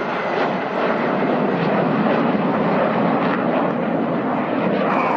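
Jet noise from the Red Arrows' BAE Hawk T1 jet trainers flying their display, a loud, steady rushing roar.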